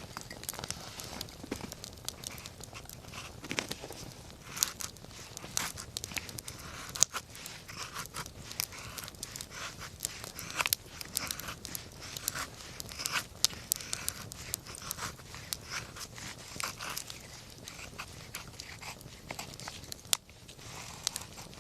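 Wood fire burning, crackling with a dense run of sharp, irregular pops and snaps over a soft hiss.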